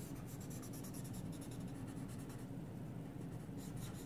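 A paper blending stump (tortillon) rubbed along pencil lines on drawing paper: a quick run of short scratchy strokes over a steady low hum.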